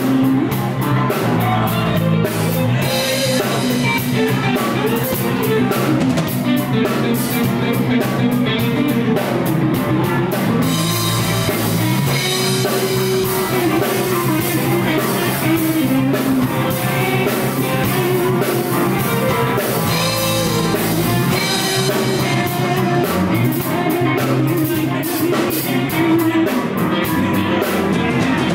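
Live rock band playing: electric guitars, electric bass and a drum kit together.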